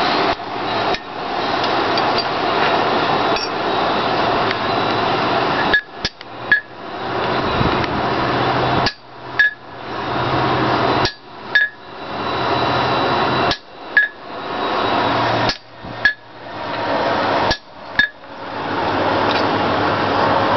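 Hand hammer striking a fullering tool on hot mild steel over the anvil to cut the veins of a forged leaf: sharp metallic blows with a short ring, starting about six seconds in and coming mostly in pairs about every two seconds. Under them runs a steady rushing noise from the coal forge's blower.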